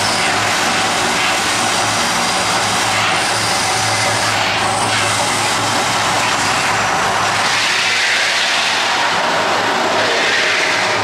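The Mirage volcano show erupting: gas flame jets and tall water fountains make a loud, steady rushing roar with a low hum beneath it.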